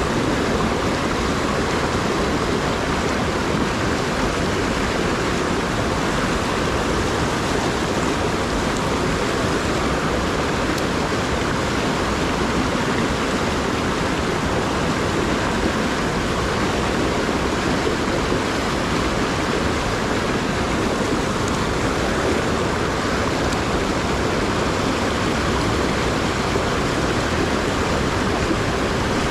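Rushing water of a rocky stream rapid, a steady, unbroken rush.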